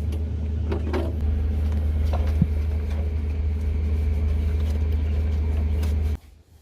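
Steady low machine hum with a few light knocks and clicks over it, cutting off abruptly about six seconds in.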